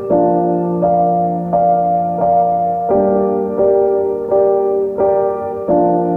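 Background piano music: a keyboard playing an even pattern of notes, a new note about every 0.7 seconds over a bass note that changes about every three seconds.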